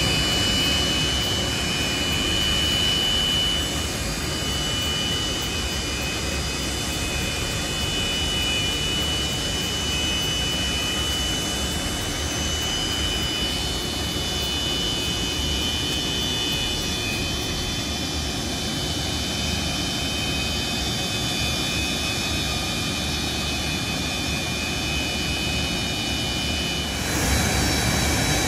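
Antonov An-124-100's four Progress D-18T turbofan engines running at taxi power as the freighter rolls slowly past: a steady rush of jet noise with a high whine. Near the end the sound grows louder and the whine drops out.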